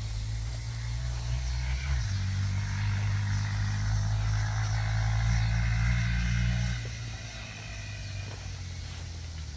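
Honda Monkey mini motorcycle's small single-cylinder four-stroke engine running steadily as it rides past. The engine gets louder about two seconds in and drops off at about seven seconds as the bike moves away.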